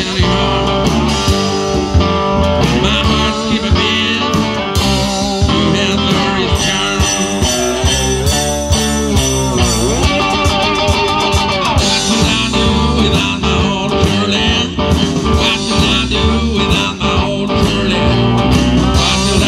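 Live blues band playing: homemade cigar box guitars and a drum kit keeping a steady beat, with a harmonica cupped to the vocal microphone.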